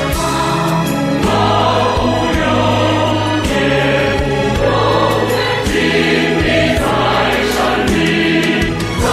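A large mixed choir singing a Chinese revolutionary song in several vocal parts, sustaining long held notes.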